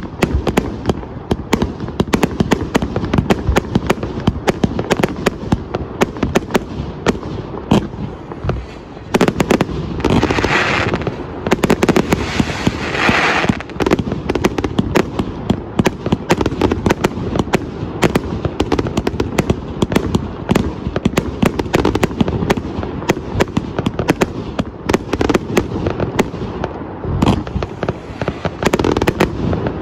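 A 249-shot 1.2-inch fireworks cake firing shot after shot in rapid, unbroken succession, a dense run of launch thumps and bursting reports. About a third of the way in there are two short stretches of louder hissing.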